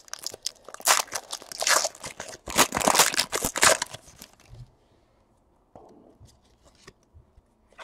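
Foil trading-card pack wrapper being torn open and crumpled by hand, a dense crackling crinkle for about four seconds. After that come only faint small clicks and rustles of the cards being pulled out and handled.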